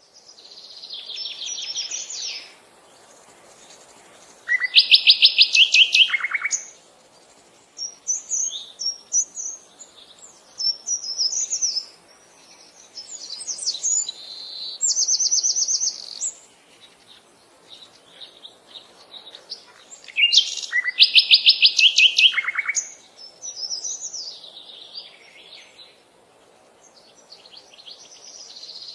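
Songbirds singing: phrases of rapid, high trills and chirps with short gaps between them. The loudest trilled phrase comes about a fifth of the way in and again about two-thirds of the way in.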